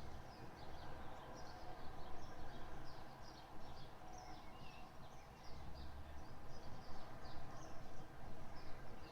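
Birds chirping and calling in short repeated notes, over a steady low rumble.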